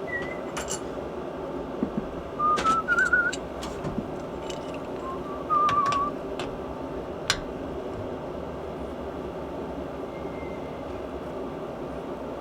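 A man whistling three short warbling phrases as he works, with a few sharp clicks in between over a steady low hum.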